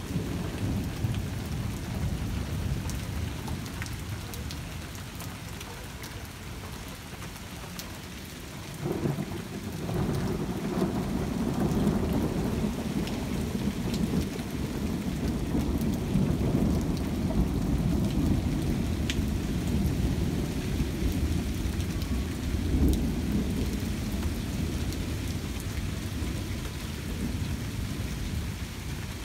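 Steady rain falling. About nine seconds in, a long low rumble of thunder sets in and rolls on for well over ten seconds.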